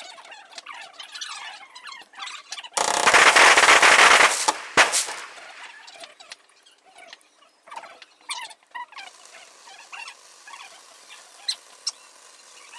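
Fireworks, played sped up. A loud burst of rushing, crackling noise comes about three seconds in and lasts over a second, then a single sharp bang. Fainter high, squeaky chirps and pops are heard around it.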